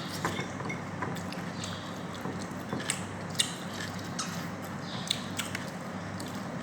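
Close-up eating sounds: irregular small clicks and smacks of chewing and of utensils, over a steady low hum.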